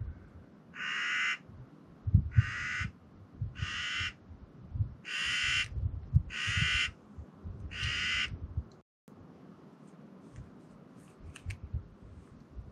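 A corvid giving six harsh caws, each about half a second long, roughly one every second and a half.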